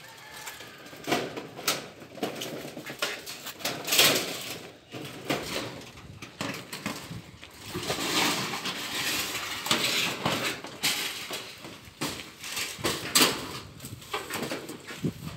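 Corrugated metal roofing sheet clanking and scraping as it is pulled off a pile and lifted upright. There are several sharp knocks and a longer stretch of rattling and scraping in the middle.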